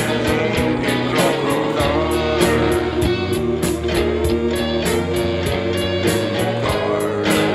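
Rock song with a steady beat, about four strokes a second.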